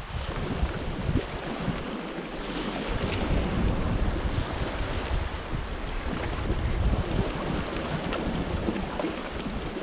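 Sea waves washing against a rocky shore, a steady rush, with wind buffeting the microphone in low gusts.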